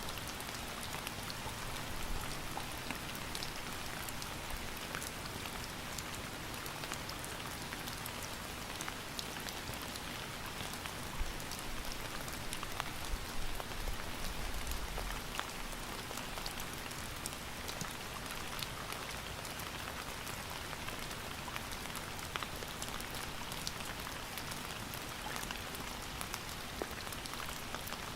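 Steady rain falling, an even hiss dotted with the sharp ticks of individual drops hitting a surface.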